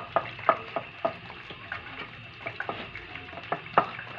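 Ghee heating in a frying pan, crackling with irregular sharp pops over a faint sizzle; the pops come thick at first, thin out in the middle, and pick up again near the end.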